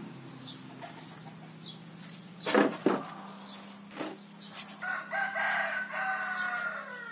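A rooster crowing once near the end, a single long held call. About two and a half seconds in there is a sharp knock, louder than the crow, and a few smaller clicks, over a steady low hum.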